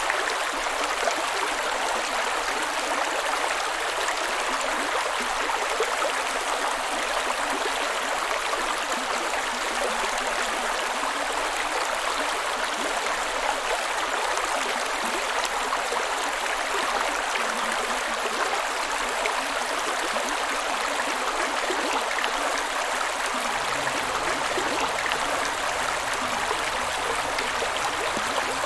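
Stream water running steadily, a continuous, even rush with no breaks.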